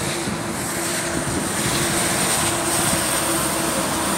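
A motor vehicle's engine running steadily: a low, even hum with a faint high whine above it, over wind rumbling on the microphone.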